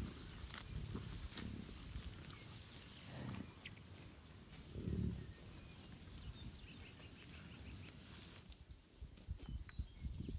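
Bison grunting low several times, the loudest grunt about five seconds in, with soft rustling and clicks from the herd in the grass. A faint high chirp repeats about twice a second behind them.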